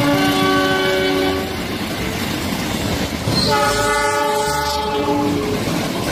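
Horn of a CC206 diesel locomotive sounding two long chord blasts, the first at the start and the second about three and a half seconds in, over the rumble of a passing train.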